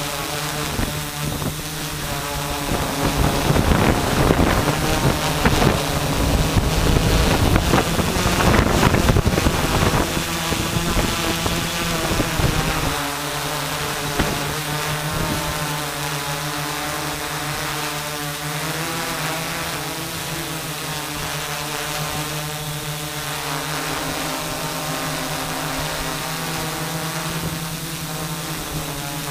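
Multirotor camera drone's motors and propellers humming steadily at an even pitch, heard from its onboard camera. Wind rushes over the microphone for several seconds a few seconds in.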